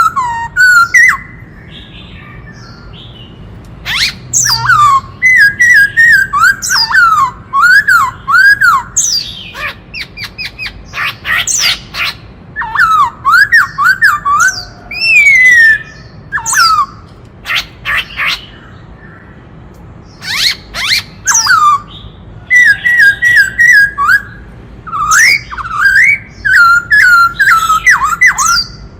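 Black-throated laughingthrush singing in loud bouts of rich whistled phrases, strings of quick up-and-down slurred notes, mixed with sharp harsh notes, with short pauses between bouts.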